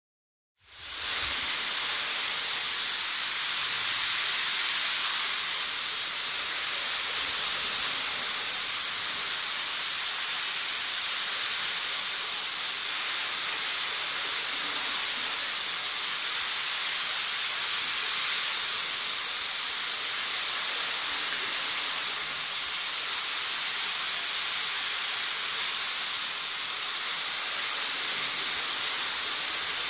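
Overhead shower spray hissing steadily as water rains down onto a horse standing in a water-filled bathing tank.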